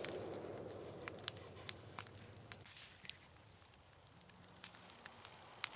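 Faint, steady high chirring of night insects, with scattered sharp pops and crackles. A low hiss fades out over the first two or three seconds.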